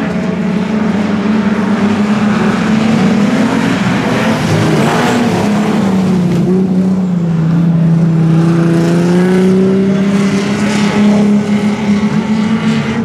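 Street stock sedans running around a dirt speedway oval, several engines at once, their pitch dipping and rising as the cars go round.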